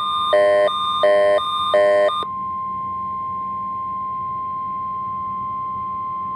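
Weather radio receiver sounding a Required Weekly Test alert: an alternating two-part beep, about three times, stops a little over two seconds in. A single steady tone just above 1 kHz then carries on, the NOAA Weather Radio warning alarm tone.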